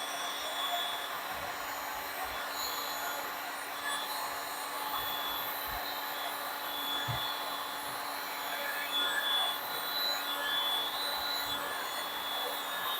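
Heat gun blowing steadily: a constant airy hiss with a faint motor hum, as used to push and lace wet epoxy resin into ocean-wave cells.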